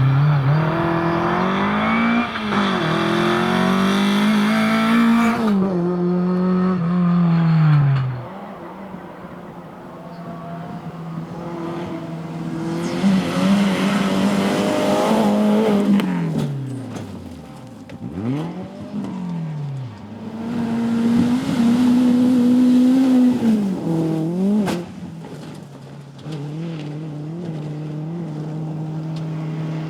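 Rally car on a gravel stage, its engine revved hard and climbing and dropping in pitch through quick gear changes. It eases off about eight seconds in, and there is a burst of hiss from tyres on gravel midway. A second hard acceleration comes near the end, and the engine then settles to a steady drone.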